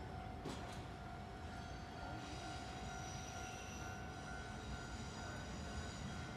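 Faint, distant Chu-Kuang Express train, its electric locomotive pulling away from the station with a steady electric whine over a low rumble. Further high-pitched whines join about two seconds in.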